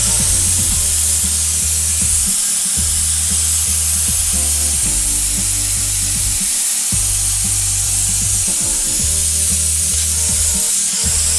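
Shark Steam Portable handheld steam cleaner jetting steam with a steady hiss, over background music with a deep bass line.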